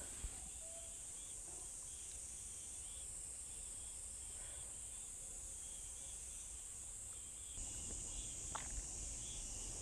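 Steady high-pitched chorus of insects in the evening, with faint repeated chirps underneath. The chorus gets a little louder about three-quarters of the way through.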